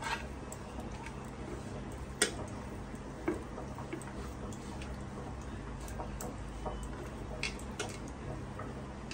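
A hand rubbing spice masala into raw fish pieces on a plastic plate: soft squishing with scattered sharp clicks of fingers and rings against the plate, the loudest about two seconds in.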